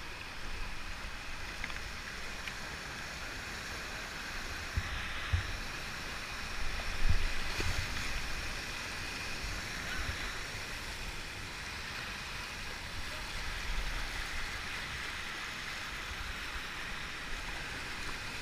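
Whitewater rushing steadily over a rocky river ledge, with irregular low rumbles and a few knocks near the microphone, loudest around the middle.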